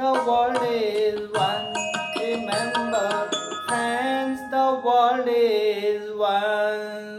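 Music: the closing bars of a song's accompaniment, a melody over a steady low drone with drum strokes, dying away at the end.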